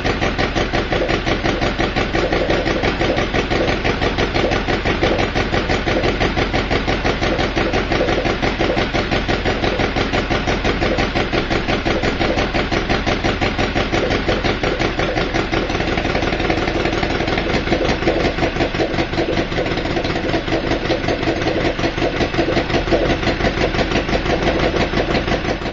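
One-third-scale model of the Anzani W3, an air-cooled three-cylinder fan engine, running steadily with a rapid, even firing beat.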